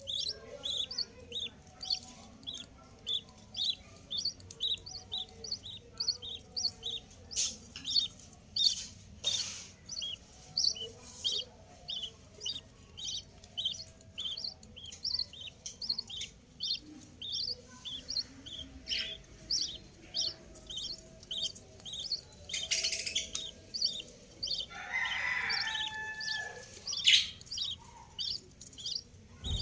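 Budgerigars chirping: a steady run of short high chirps, a few a second, with a louder, lower squawk about 25 seconds in.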